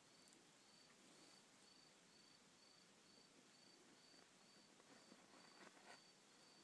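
Near silence, with a faint high chirp repeating about twice a second and, about five seconds in, a few soft rustles of a hamster moving through wood-shaving bedding.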